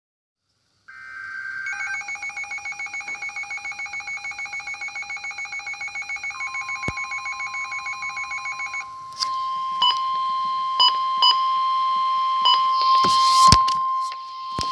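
Emergency alert tones announcing a severe thunderstorm warning. About a second in, a rapidly pulsing electronic alarm starts and runs for about eight seconds; a steady high tone comes in partway through it and then carries on alone, with a few short higher beeps and a brief harsh burst and click near the end.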